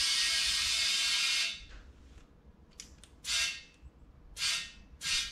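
Compressed air hissing from an air-hose inflator chuck held on the valve of a flat minibike tire: one long blast that stops about a second and a half in, then four short bursts.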